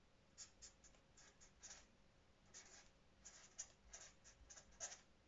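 Felt-tip marker pen scratching faintly across paper in many short, irregular strokes as words are handwritten.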